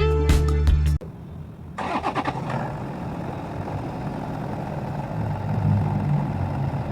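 Toyota Innova engine starting after its fuel filter change: a low rumble, then the engine catches about two seconds in and settles into a steady idle. Guitar music ends in the first second.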